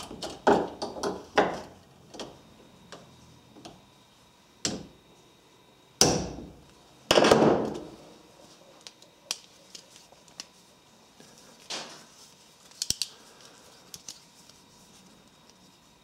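Light hammer tapping a steel ratchet extension held against the hinge of a Leatherman Wave multi-tool clamped in a bench vise, peening the pivot tighter to cure a floppy handle: a quick run of sharp metal strikes in the first second and a half, then single lighter taps. About six seconds in comes a louder metallic clang that rings on, and a longer metal clatter just after; small clicks follow, spread out, as the tool is handled.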